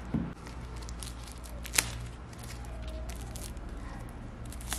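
Shrink-wrapped Apple Pencil (2nd generation) box handled in the hands: faint crackling and rustling of the plastic film, with one sharp click a little under two seconds in, over a steady low hum.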